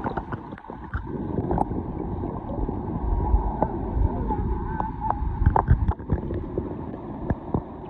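Wind buffeting the microphone over moving river water, with scattered small knocks and splashes.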